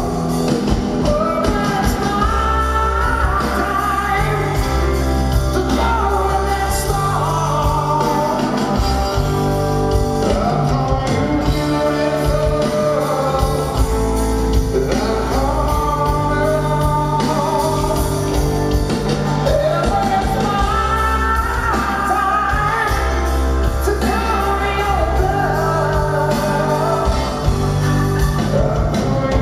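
Live rock band with a male lead vocalist singing over electric guitars, bass and drums, heard through the venue's PA from among the audience. The voice carries long, gliding sung lines over long sustained low notes, in the manner of a rock ballad.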